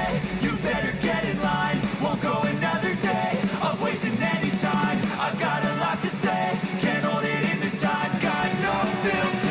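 Background rock song with a steady beat.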